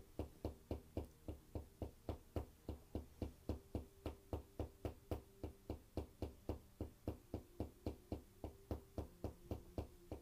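Tok sen massage tapping: a wooden mallet striking a wooden stick held against the body, an even run of sharp knocks about four to five a second.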